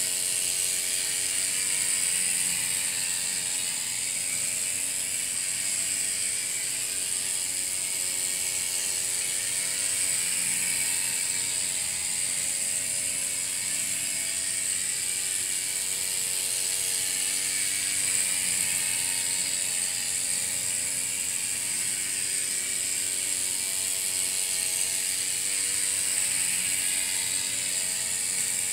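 Miniature steam speeder's tiny one-cylinder, single-acting steam engine running steadily as the car goes around its track. It gives a steady high hiss with faint tones that waver every few seconds.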